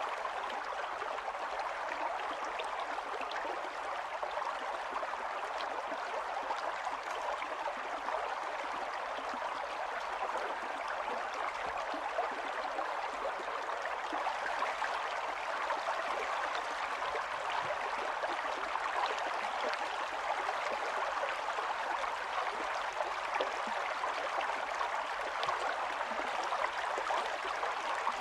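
Steady rain pattering down, a dense even hiss of many small drop impacts.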